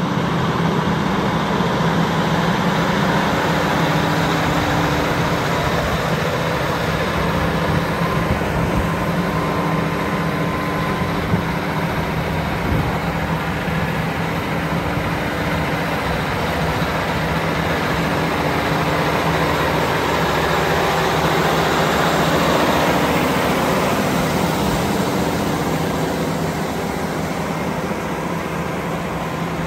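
Versatile DeltaTrack tractor's Cummins diesel engine running steadily as the tractor drives slowly, swelling a little in loudness about two-thirds of the way through.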